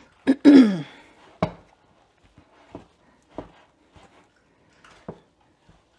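Wooden spoon stirring stiff, rather dry sourdough dough in a glass mixing bowl, knocking against the bowl five times at uneven intervals. Near the start comes a short vocal sound falling in pitch, like a throat clear.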